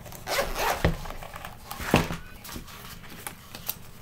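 A zippered hard-shell carry case being unzipped and opened by hand: scratchy zip-and-rub sounds in the first second, a single knock about two seconds in as the case is handled, then light clicks and rustling of the contents.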